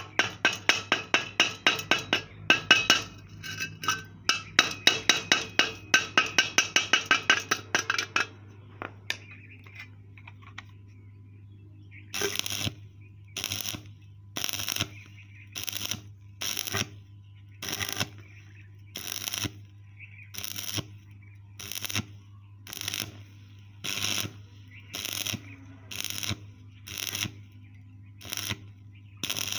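A hammer rapidly striking the hot steel weld on a square tube, about four ringing metal blows a second for the first eight seconds. From about twelve seconds in, a stick-welding arc crackles in short bursts of about half a second, roughly once a second, as the electrode is struck and broken off to build weld up over the hole.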